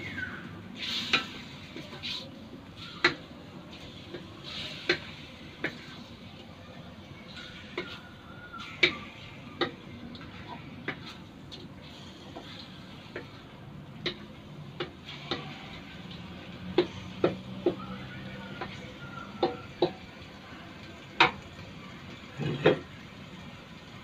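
Wooden spatula stirring pork cubes in a stainless steel wok, knocking and scraping against the pan at irregular moments, over a steady sizzle as the pork sautés.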